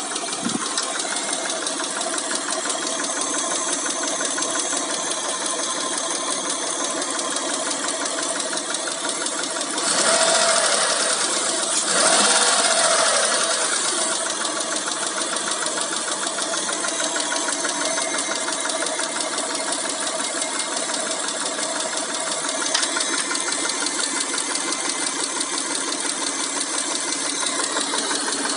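Mitsubishi 6G72 V6 engine running with a rapid, steady ticking from its hydraulic lash adjusters (lifters), the sign of worn or oil-starved lifters. It is revved briefly twice about a third of the way in, then settles back to idle.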